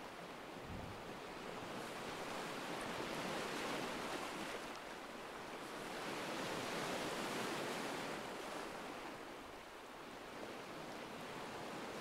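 Recorded ocean waves washing ashore: a steady rushing surf that slowly swells and eases.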